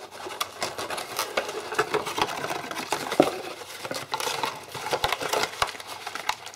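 Corrugated cardboard packaging insert being lifted and worked out of a cardboard box: an irregular run of scraping, rustling and tapping of cardboard on cardboard, with a sharper knock about three seconds in.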